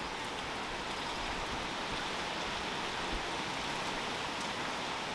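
Steady rain from a hurricane falling on a yard and driveway, an even hiss with no single drops standing out.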